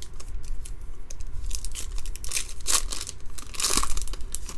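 Foil trading-card pack torn open by hand, the wrapper crinkling in a run of crackly rips, loudest about two and a half and nearly four seconds in.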